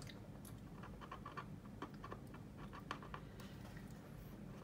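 Faint, irregular scratching and ticking of a wooden toothpick burnishing masking tape down along the raised panel lines of a plastic model kit.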